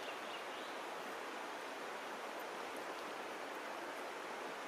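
Shallow stream flowing over stones: a steady rushing hiss of running water.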